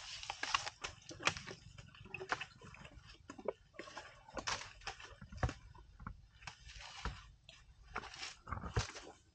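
Asian elephant feeding on vegetation: irregular crunching and rustling of leaves and stems, with a few sharper snaps.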